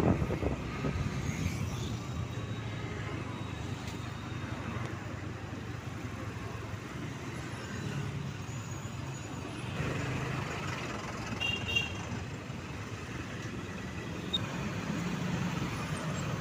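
Road traffic heard from the back of a moving motorbike: a steady low engine and road rumble from the bike and the buses and motorbikes around it, with a short high beep about twelve seconds in.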